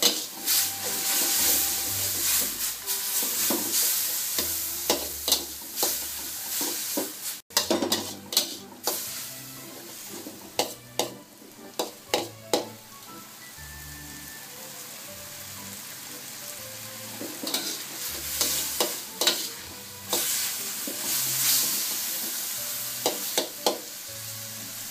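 Rice noodles in pad thai sauce sizzling in a stainless-steel wok while a metal spatula stirs them, with repeated short scrapes and clacks of the spatula on the pan; the sauce is cooking off until the noodles are dry. The sound cuts out for an instant about seven seconds in.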